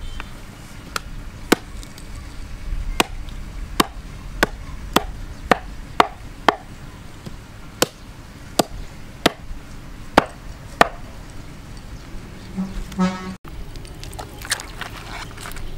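Knife chopping raw chicken on a wooden chopping block: about fifteen sharp, uneven chops, one or two a second, stopping about eleven seconds in.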